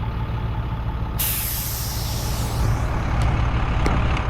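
A sharp hiss of released compressed air starts about a second in and fades out over a second and a half, over an engine running steadily.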